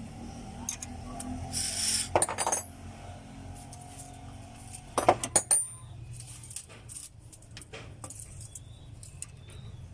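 Metal tools and parts clinking and clattering in two short bursts, about two seconds in and again about five seconds in, over a steady low hum.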